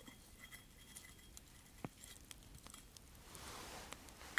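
Campfire crackling faintly, with scattered small pops and snaps. A soft rushing noise builds near the end.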